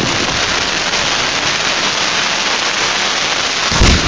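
Aerial fireworks crackling: a loud, dense sizzle of many tiny pops from bursting stars, with another bang a little before the end.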